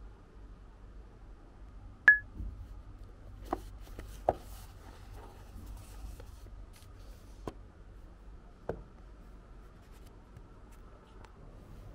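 Books being handled on a shelf: a sharp knock about two seconds in, then a few lighter taps and faint rubbing of paper covers, over a low room hum.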